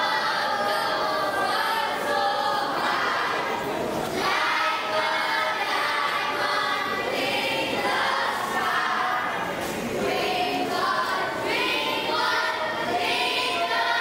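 A children's choir singing together on stage, many voices in unison, with short breaks between phrases.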